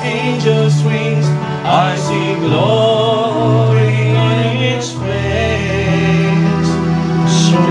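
Gospel music: sung vocals with vibrato over held instrumental chords and a steady bass line.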